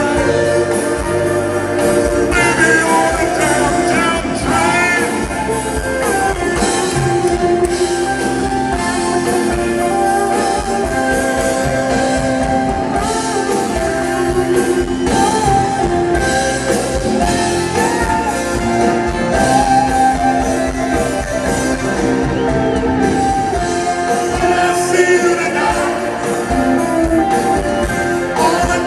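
Live rock band playing at full volume, with singing over the instruments.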